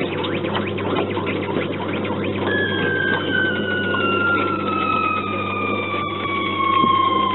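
J.M. Kiddie Rides coin-operated helicopter ride running with a steady hum and mechanical clatter; about two and a half seconds in, a push-button electronic sound effect starts, one tone gliding slowly downward for about five seconds like a falling-bomb whistle.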